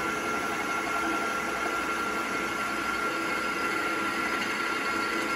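Milling machine running steadily with its spindle turning a drill-rod gauge: an even motor hum with a constant thin whine.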